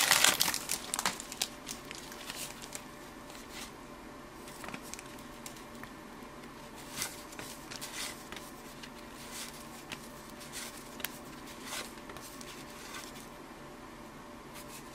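Cellophane wrapper of a cello pack of baseball cards crinkling as the cards are pulled out in the first second, then faint scattered clicks and rubs of the cardboard cards being slid through by hand.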